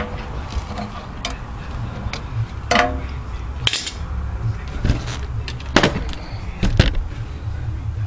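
Sharp, irregular metal clicks and clanks, about ten of them, as wide-nose pliers and a C-clamp work a rear brake caliper piston, twisting it back into the caliper. A steady low rumble runs underneath.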